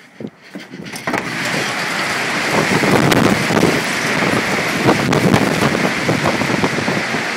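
Tornado-driven wind and heavy rain rushing hard and steadily, with many small crackles and clicks of rain and debris striking; it comes in suddenly about a second in.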